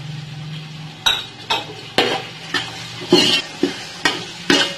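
Metal slotted spoon stirring chickpeas and chopped tomatoes in hot oil, scraping and knocking against the metal pot about every half second from about a second in, over a faint sizzle.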